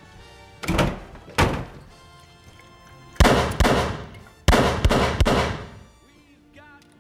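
Film soundtrack: a run of about seven heavy impacts, each ringing off, two single hits and then two close clusters, over dramatic music, which carries on alone near the end.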